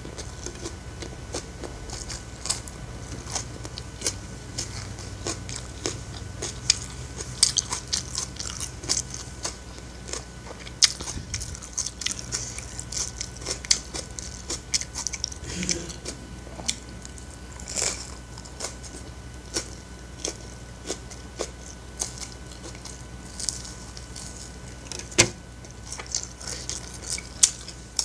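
Close-miked eating sounds: biting and chewing raw napa cabbage leaves and fried rice, with irregular crisp crunches and wet mouth clicks, and one sharper crunch near the end.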